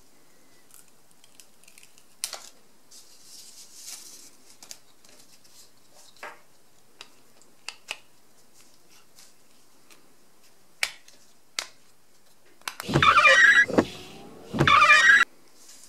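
Light clicks and taps of a digital caliper being handled and pressed into a 3D-printed plastic frame, then two loud, scraping slides near the end, each under a second and about a second apart, as the caliper's beam is run through its slider.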